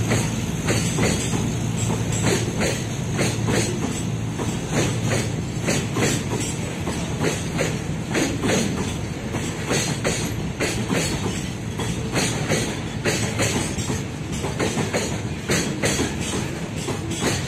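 Oil tank wagons of a freight train rolling past, their wheels clacking over rail joints in a rapid, uneven clatter above a steady low rumble.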